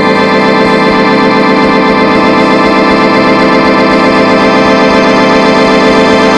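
Music: a sustained organ chord held steadily, a dense unchanging drone with no breaks.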